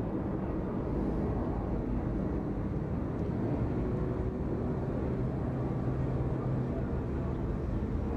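Steady low outdoor rumble with a faint hum running through it, without sudden events.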